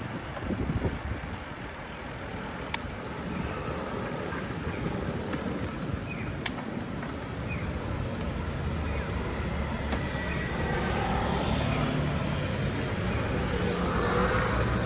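Street sound heard from a moving bicycle: a steady low rumble of wind and road noise with passing traffic, growing louder in the second half, and a few sharp clicks.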